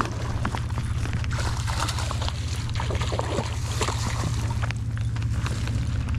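Hooked trout splashing and thrashing at the surface while a spinning reel is cranked in with short, sharp clicks, over a steady low rumble on the microphone.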